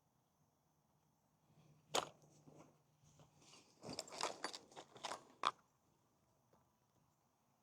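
Handling noises: a sharp click about two seconds in, then a quick run of clicks and clatter that ends in another sharp click.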